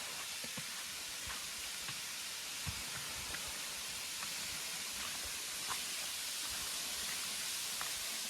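Steady hiss of rushing water, with a few faint clicks.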